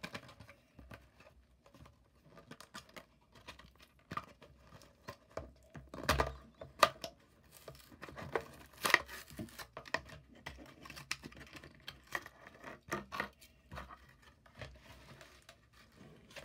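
A Matchbox toy car's blister-card package being torn open by hand: the card ripping and the plastic blister crinkling in a string of sharp rips and clicks, the loudest about six and nine seconds in.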